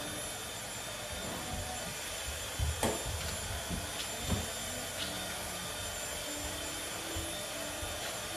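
Samoyed puppies' paws thumping and scrabbling on a hardwood floor as they jump at a flirt pole in tug play, a few thumps around three and four seconds in, over a steady background hiss.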